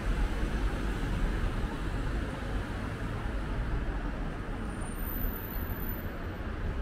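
Steady city street traffic: cars running along the boulevard, heard as a continuous even noise with no single event standing out.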